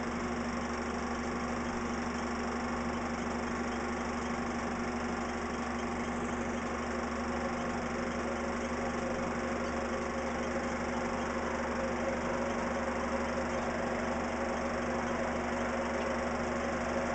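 Steady drone of a jet airliner's engines, an unbroken whine and rush with no change in pitch.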